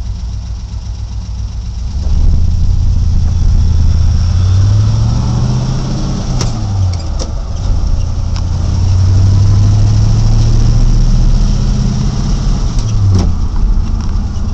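Truck engine heard from inside the cab accelerating through the gears with a manual transmission. The engine pitch climbs, then drops at a gear change about seven seconds in, climbs again and drops at a second shift near the end. Sharp clicks sound at the shifts.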